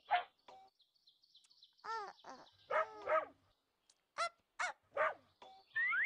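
Cartoon puppy yapping in several short, sharp barks. There is a quick falling run of high notes about a second in and a rising glide near the end.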